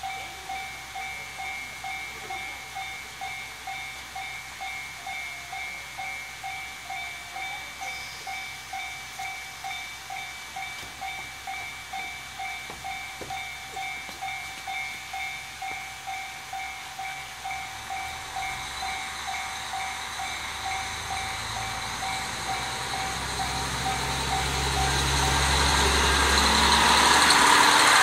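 A warning bell rings steadily about one and a half times a second while a diesel local train's engine builds as it pulls away and passes close. Its rumble and the noise of the train grow loud near the end, and the bell stops shortly before.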